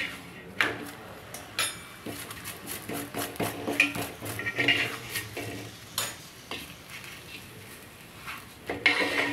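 Steel spoon scraping and clinking on a hot iron tawa as oil is spread over a cooking chapathi, with a light sizzle. Near the end a wooden spatula presses and turns the chapathi on the pan.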